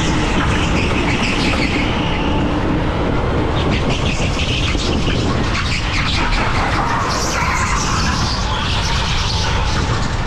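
Electric indoor go-kart being driven on track: the electric motor whining and shifting in pitch, with the tyres squealing in short chirps through the corners over a steady, loud rush of noise.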